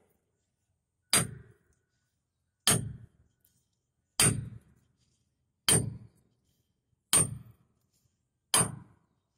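Steel hammer striking the steel track chain of an amphibious excavator's pontoon six times, about one blow every second and a half. Each blow is a sharp clang with a brief metallic ring. The blows are knocking a loose chain pin back in.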